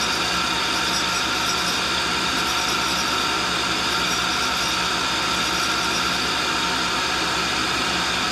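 No. 2 tool and cutter grinder running, its abrasive wheel grinding a hardened lathe center that turns in the motorized work head: a steady grinding hiss over the hum of the motors, with several steady tones and no breaks.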